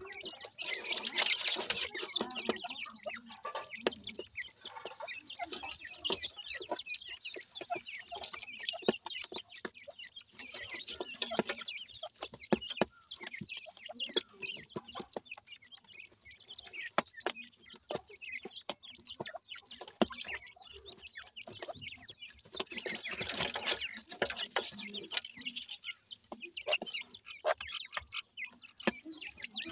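Francolin hen and chicks clucking and peeping while feeding, with bursts of high calls that come and go, over a steady run of small sharp taps of beaks and feet pecking and scratching in soil and pebbles.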